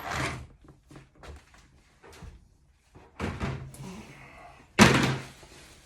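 Knocks and clatter as a Paslode IM350+ gas nailer and its parts are handled during disassembly: a sharp knock at the start, a few light clicks, a brief scrape about three seconds in, and a loud bang a second later.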